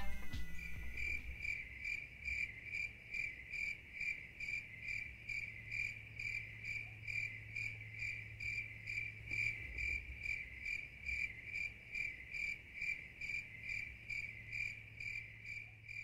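A cricket chirping steadily, short high chirps evenly spaced at about two and a half a second.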